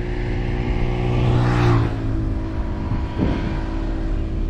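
Car engine hum and tyre and road noise heard from inside the moving car. A louder rushing swell builds and cuts off about two seconds in.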